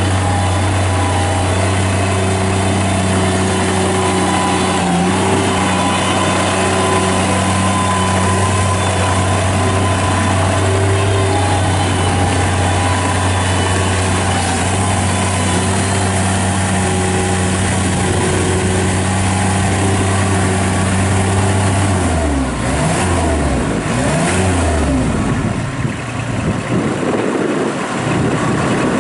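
Bobcat MT55 mini track loader's Kubota diesel engine running at a steady high speed. About 22 seconds in, its speed drops and the pitch wavers up and down for a few seconds.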